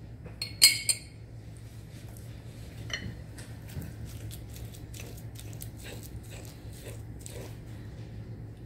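A metal spoon clinks sharply against a glass relish jar twice, about half a second in. Then a fork mashes and stirs egg yolks and relish in a glass pie plate, with soft mashing and many light clicks and scrapes of the fork on the glass.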